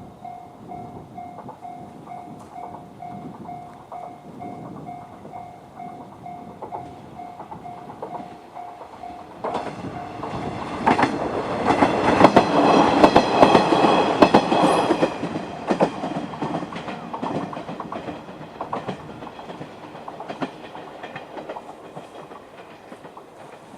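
Japanese level-crossing warning bell in the JR standard electronic tone, ringing about twice a second. It stops about nine seconds in as a two-car KiHa 110 series diesel railcar runs over the crossing: diesel engines running and wheels clacking over the rail joints. The train is loudest around twelve to fifteen seconds in, then fades.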